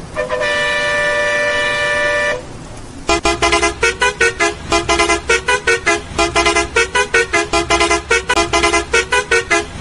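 Vehicle horn: one long steady blast, then from about three seconds in a rapid run of short toots at shifting pitches, about four or five a second, like a tune played on a horn.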